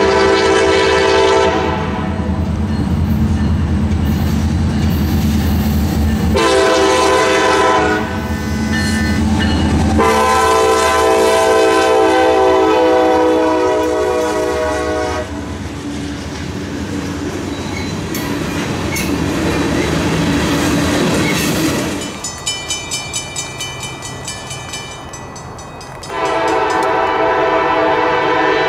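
Diesel freight locomotive horn sounding a long blast, a short one and a long one over the rumble of the locomotives, then the train's cars rolling past. A quick, even clatter of wheels follows, and another loud horn blast starts near the end.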